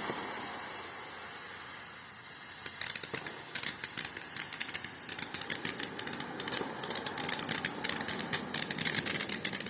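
Small consumer firework going off: a fading hiss, then from about three seconds in a dense, irregular crackle of many small pops each second.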